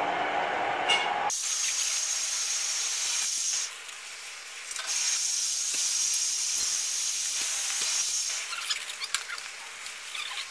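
A hot metal rod sizzling as it sears burn marks into a wooden hatchet handle. The hiss is high and comes in two long stretches with a short break, then gives way to crackling near the end. A different, lower noise is heard for about the first second before it cuts off.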